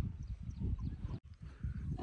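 Swaraj 855 diesel tractor engine idling with a low, uneven knock. The sound cuts out for an instant a little past a second in.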